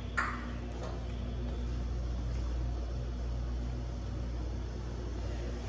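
Steady low hum of the ship interior's ventilation and air-handling system running, with a brief noise near the start.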